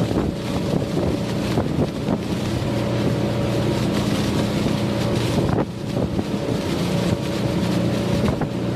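Twin Suzuki outboard motors running steadily at cruising speed, an even engine drone under heavy wind buffeting on the microphone. The drone briefly drops about five and a half seconds in.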